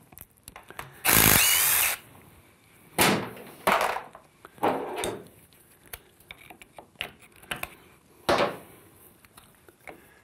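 A handheld power driver runs in a burst of about a second, spinning out the hold-down bolt of a speed sensor on a 68RFE transmission case. Shorter tool noises and metal clicks follow as the sensors are worked loose.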